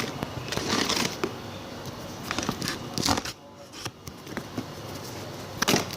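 Shipping packaging being opened by hand: irregular rustling, crinkling and crackling, with a few sharp clicks.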